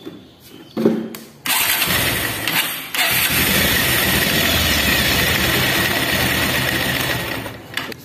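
Bajaj Pulsar 150 single-cylinder engine started and run for about five seconds with its clutch cover off, the clutch and balancer gears spinning exposed, then shut off near the end.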